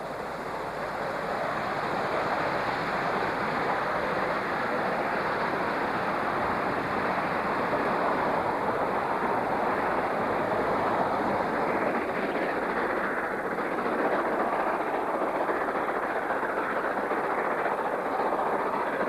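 Steam-hauled passenger train running past and pulling away: a steady rushing rumble of the coaches rolling on the rails.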